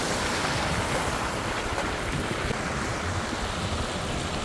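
A steady, even rush of heavy rain and water on a wet road, with wind buffeting the microphone.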